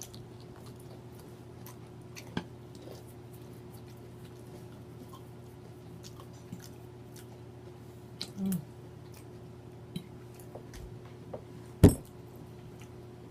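Chewing and mouth smacking while eating, with scattered small clicks over a steady low hum. A short low vocal sound comes about eight and a half seconds in, and one sharp, loud click near the end.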